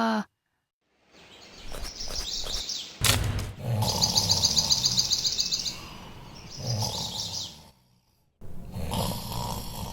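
Cartoon sound effect of birds chirping in rapid high runs, over a low rumbling sound.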